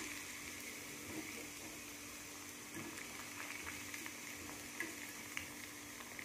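Hot oil sizzling low and steady around chilli-masala-coated cauliflower pieces as they are lifted out with a wire strainer, with small scattered crackles; the pieces are fully fried.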